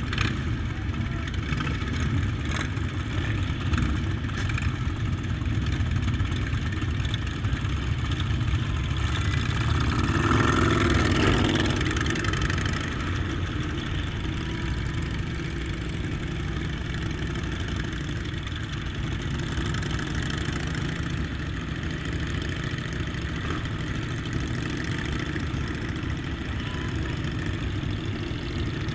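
Motorcycle engines running steadily at low revs, with one louder swell lasting about two seconds around a third of the way in.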